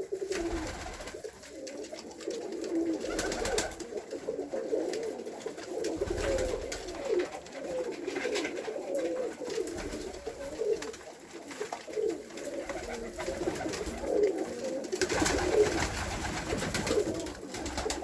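A group of Bessarabian roller pigeons cooing continuously inside a pigeon loft, many overlapping throaty coos, with scattered light taps and clicks among them.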